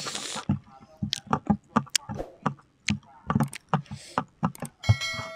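Hands handling and pulling at a whole grilled chicken: a run of short sharp clicks and crackles, about three a second. A whoosh comes about four seconds in and a bell-like chime follows near the end, the sound effect of an on-screen subscribe-button animation.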